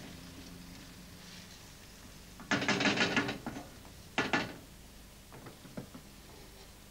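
A spoon stirring curry in a metal pan, scraping and knocking against it. There is a burst of clatter about two and a half seconds in, a shorter one just after four seconds, and a few light clicks after that.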